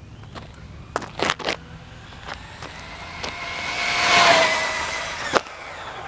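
A car passes, its engine and tyre noise swelling to a peak about four seconds in and then fading. A few sharp clicks come about a second in, and a single sharp bang comes just after the peak.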